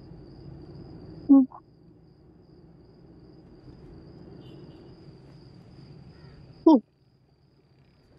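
Faint outdoor ambience with a steady high insect chirr, like crickets. It is broken twice by a brief loud sound: a short low call about a second in, and a quick falling call near the end.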